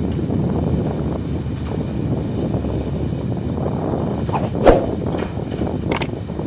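Excavator's diesel engine running steadily, with one sharp clank about two-thirds of the way through and a couple of light clicks near the end.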